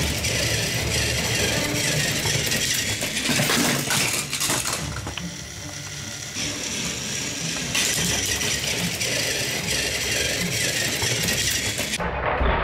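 Battery-powered Plarail toy train motors and gearboxes whirring and grinding as two engines push against each other on plastic track. The sound dips for a moment around the middle and gives way abruptly to a different, duller sound near the end.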